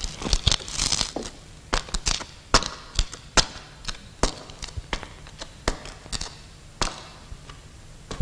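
Footsteps going down cellar steps: sharp, irregular steps, roughly two a second, with a crackly rustle in the first second.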